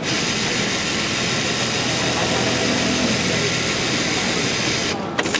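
Automatic placket sewing machine running its sewing cycle at high speed: a steady mechanical whir that starts suddenly and stops about five seconds in, followed by a few sharp clicks.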